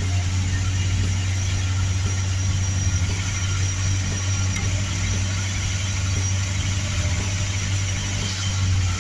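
A 1974 Chevrolet Monte Carlo's 350 small-block V8 idling steadily, just started after a new power steering pump was fitted.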